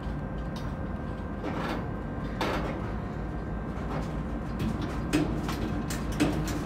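Freight train boxcars rolling slowly past: a steady low rumble of steel wheels on rail, with intermittent metallic clanks and clicks from the cars that come more often in the second half.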